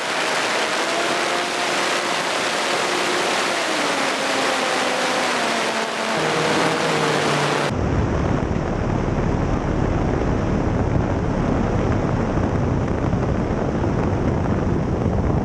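Cessna 180 in flight on a landing approach, heard from a wing-mounted camera: a loud rush of airflow with the engine and propeller note wavering in pitch. About halfway through, the sound changes abruptly to a deep, steady wind rumble on the microphone as the plane comes down over the runway.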